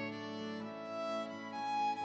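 Background instrumental music with long held notes that change pitch slowly.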